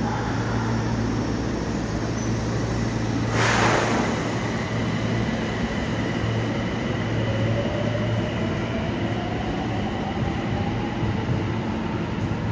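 Yokohama Municipal Subway 4000-series train departing from an underground platform, over a steady low hum. A short burst of hiss comes about three and a half seconds in, and a whine rises in pitch as the train accelerates away.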